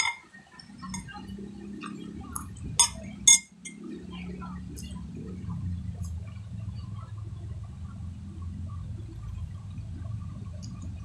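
Eating sounds: a few sharp clinks of a utensil against a dish or glass, the loudest about three seconds in, then a steady low rumbling noise close to the microphone.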